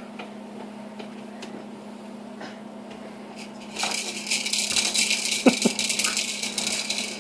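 A toddler handling a plastic baby activity toy: a dense, high rattling starts about four seconds in and keeps going for about three seconds. A steady low hum runs underneath.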